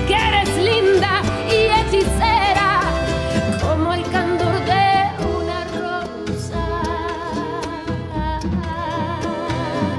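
Live acoustic band playing, with fiddles, mandolin, acoustic guitars and upright bass, under a woman's voice singing long held notes with vibrato.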